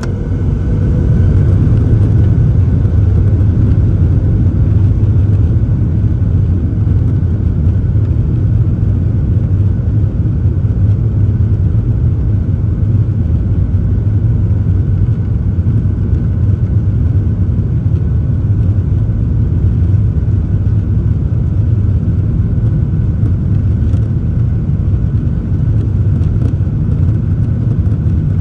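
Airliner's jet engines heard from the cabin over the wing, spooling up to takeoff thrust over the first two seconds, then a loud steady rumble with a faint whine as the plane accelerates down the runway on its takeoff roll.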